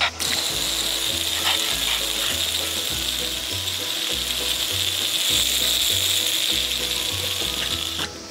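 Water jet spraying up from a fountain splash mat, a steady hiss that starts suddenly and cuts off shortly before the end. Background music plays underneath.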